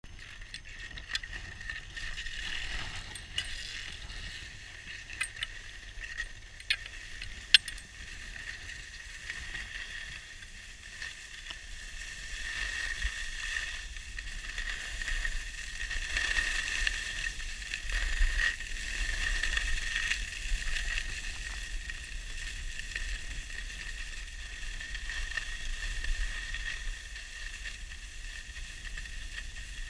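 Skis sliding and scraping over packed groomed snow, a steady hiss, with low wind rumble on the microphone. A few sharp clicks in the first several seconds, the loudest one about seven seconds in.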